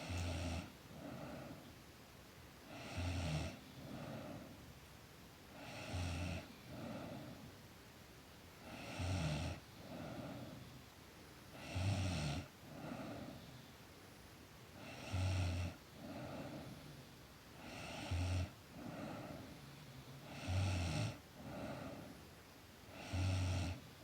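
A girl snoring in her sleep: a loud, rasping snore with a deep rumble about every three seconds, each followed by a softer breath, in a slow, even rhythm.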